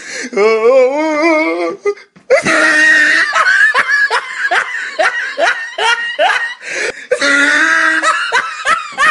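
A person laughing heartily. A wavering, warbling laugh runs for the first couple of seconds, then after a short break comes a long run of loud, repeated laughs.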